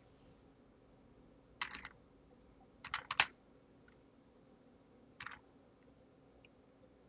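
Computer keyboard typing in short spurts: a couple of keystrokes about one and a half seconds in, a quick run of four or five around three seconds, and another couple just after five seconds, over a faint steady hum.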